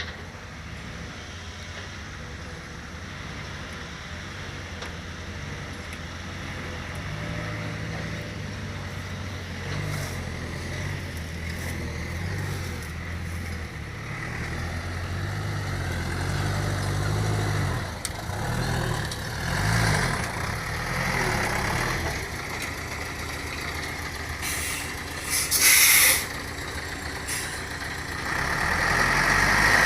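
Heavy diesel engines of an excavator and dump truck running at a worksite, the engine note rising and falling as the machines work. Near the end comes a short, loud burst of hiss.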